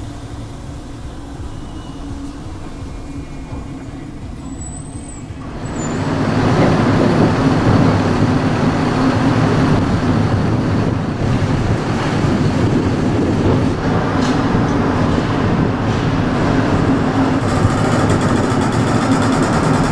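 Steady low rumble of the ferry Queen of Oak Bay's machinery heard from the car deck, stepping up about six seconds in to a louder, dense, steady rumble and hiss of engines and ventilation on the open upper deck while the ship lies docked.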